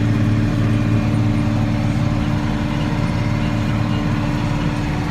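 Tractor engine running at a steady speed: a constant low, even hum.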